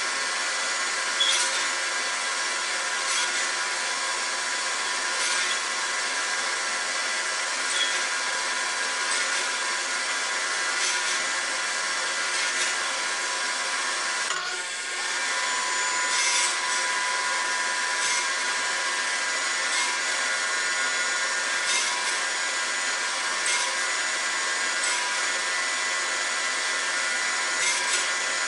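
Table saw motor running with a steady whine while its blade cuts a row of slots into the edge of a wooden board, one short cut every two to three seconds.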